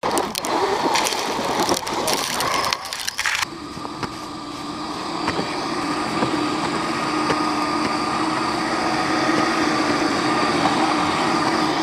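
A radio-controlled vehicle's electric motor and drivetrain whining steadily, growing gradually louder as it runs. It follows a few seconds of crackling and knocking that stop abruptly.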